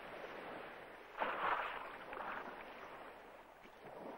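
Sea water noise with a louder splash about a second in, which fades over the next second.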